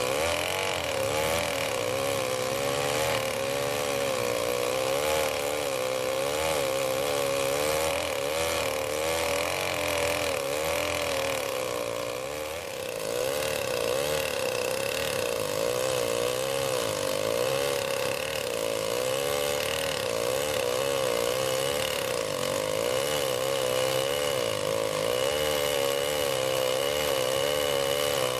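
Two-stroke chainsaw running under load in a chainsaw mill, ripping a large log lengthwise. Its engine note wavers steadily as the chain bites, with a brief dip about halfway through.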